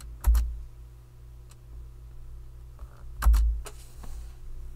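Computer mouse clicking: two quick double clicks, each with a dull thump, about a third of a second in and again about three seconds in, with a few fainter ticks between, over a low steady hum.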